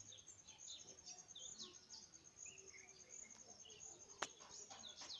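Faint outdoor ambience: an insect's high, rapid, evenly pulsing chirp runs steadily, with scattered short bird chirps over it and a single sharp click a little after four seconds in.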